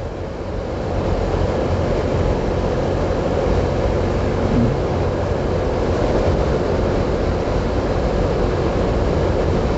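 Motorcycle running at a steady cruise, its engine hum mixed with wind and road noise; it grows a little louder about a second in, then holds steady.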